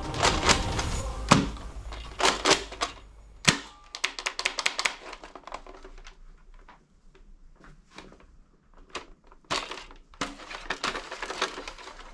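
Hard plastic clicking and knocking as a toy sniper-rifle blaster is picked up and handled among a pile of plastic toy guns: a busy run of clicks, a sparser stretch in the middle, then more clicks near the end.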